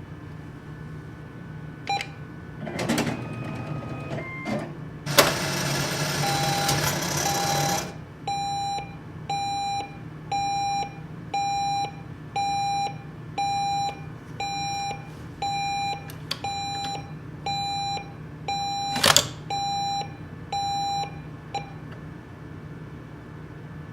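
ATM withdrawal sequence. A single beep is followed by a short mechanical whir and a few seconds of loud mechanical rattling from the cash-dispensing mechanism. Then comes a steady run of beeps, about one a second for some thirteen seconds, with a sharp click partway through, over a low machine hum.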